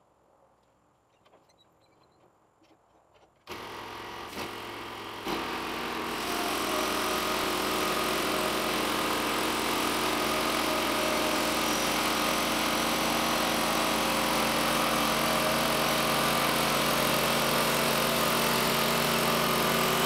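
Near silence, then the Timberking 1220 bandsaw mill's engine starts about three and a half seconds in, steps up in speed about two seconds later and runs steadily at high speed as the band blade rips through a red oak cant.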